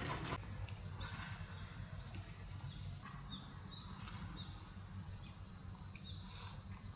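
Outdoor insect ambience: a steady high-pitched insect trill with short chirps repeating roughly twice a second, over a faint low rumble.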